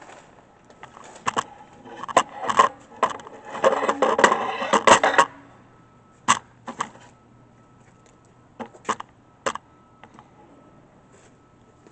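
Sharp metallic clicks and clanks from a horizontal band saw being set back up by hand, with a dense clatter about four to five seconds in and single knocks after it. A faint steady hum comes in about halfway.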